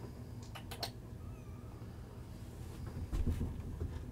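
Young kittens mewing faintly in a few thin, wavering cries, with rustling of quilted bedding and a couple of soft clicks as they crawl about.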